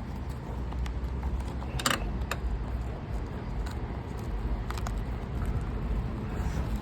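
A stuck roof shingle being worked at by hand to pry it loose: a few scattered short scrapes and clicks over a steady low rumble.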